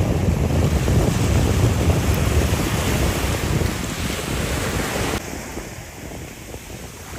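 Surf washing in and breaking in the shallows, with wind buffeting the microphone as a heavy low rumble. About five seconds in the sound drops suddenly to a quieter wash.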